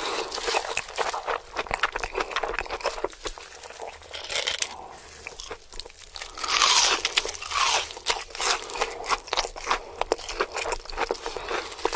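Close-miked eating sounds: rapid crunching, biting and chewing of crunchy food. A louder hissing stretch comes a little past the middle.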